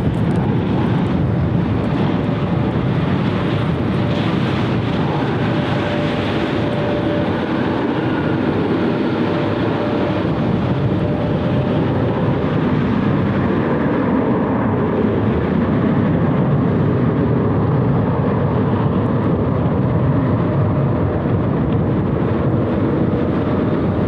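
Jet airliner engines running steadily, a constant rumble with a faint whine held on a couple of steady tones.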